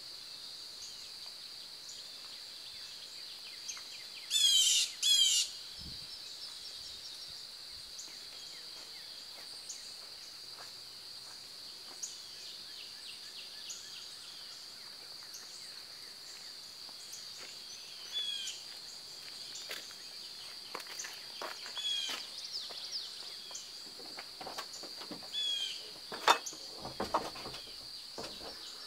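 Outdoor country ambience: a steady high insect drone with scattered bird chirps, and a loud two-part bird call about four and a half seconds in. A few knocks near the end.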